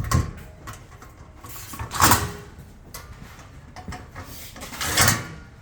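Grill parts being handled during assembly: three short scraping, knocking sounds, near the start, about two seconds in, and near the end.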